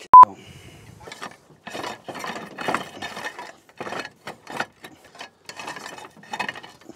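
Electrical cable being pulled hand over hand up through a gap in terracotta roof tiles, rubbing and scraping in a quick run of irregular strokes. A brief loud beep tone sounds at the very start.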